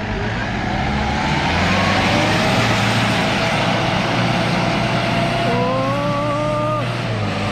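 Off-road jeep's engine revving hard as it drives through deep mud, its wheels spinning and churning. The pitch climbs in the first couple of seconds, and a held higher tone sits over it from about five and a half seconds in before cutting off.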